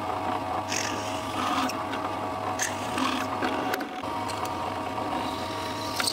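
Bench pillar drill running with a steady motor hum and whine as its small bit drills down through a part held in a jig, with a few short scratchy cutting noises.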